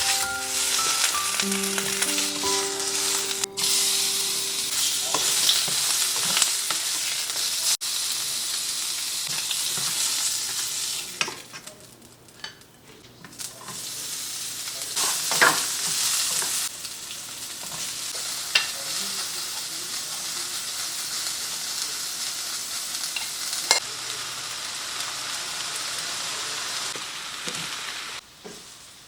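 Food sizzling and frying in a hot pan, a steady crackling hiss, with occasional sharp clinks and scrapes of a utensil stirring. The sizzle drops away for a couple of seconds about midway, then comes back.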